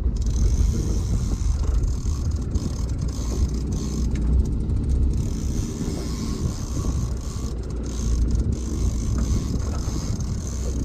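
Small boat's outboard motor running steadily at trolling speed, mixed with rushing water and wind noise.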